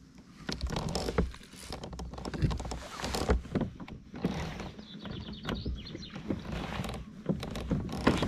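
Handling noise from a kayak and a spinning reel while fighting a hooked sea bass: irregular knocks, rubbing and bumps against the hull, with a short run of rapid ticks about halfway through.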